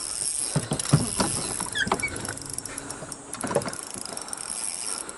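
Spinning reel and rod handling noise while a hooked bass is played beside a boat: irregular clicks and knocks with a couple of short squeaks about two seconds in, over a steady high insect drone.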